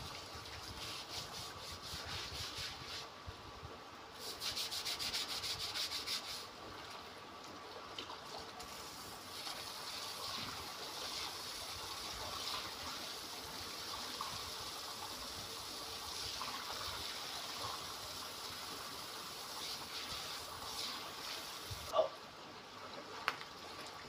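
A stiff scrubbing brush scouring wet concrete in quick, repeated strokes, louder for a couple of seconds about four seconds in. Then a garden hose sprays water steadily onto the concrete floor. A couple of sharp knocks come near the end.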